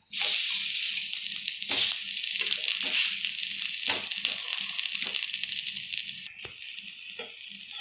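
Gram-flour chila sizzling on a hot tava right after being flipped, its uncooked side now on the pan, with a few scrapes and taps of a steel spatula. The sizzle starts suddenly and eases off gradually.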